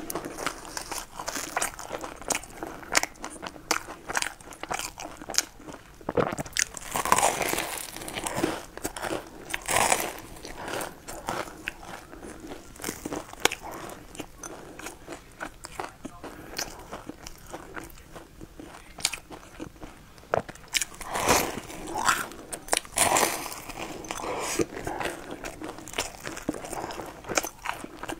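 A person biting and chewing a crusty, crumb-coated bread roll dipped in thick white cream. The crunching bites and chewing go on irregularly, with louder clusters of bites about a third of the way in and again about three-quarters through.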